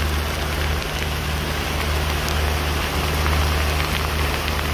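Heavy rain mixed with hail pelting a sailboat's cockpit: a dense, steady hiss with scattered small ticks, over a steady low hum.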